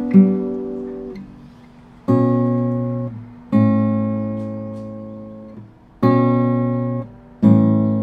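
Acoustic guitar playing single strummed chords, each left to ring and fade before the next, five strikes spaced a second or two apart.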